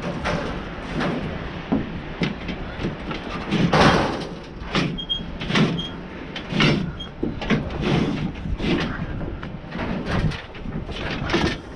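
Metal junk clanking and banging, with irregular impacts about once a second over a steady low rumble.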